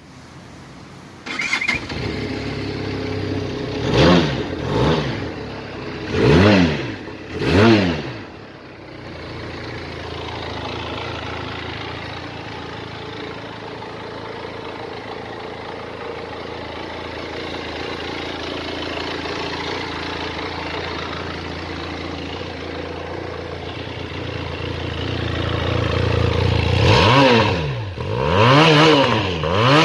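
A Benelli motorcycle engine starts about a second and a half in and is blipped four times in quick succession. It then idles steadily, and is revved three more times near the end.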